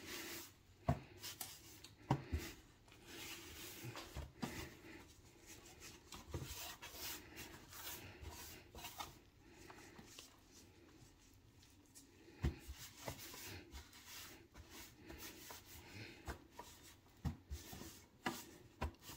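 Hands rubbing dry coating powder onto raw chicken pieces: soft, irregular rubbing and rustling with scattered light knocks.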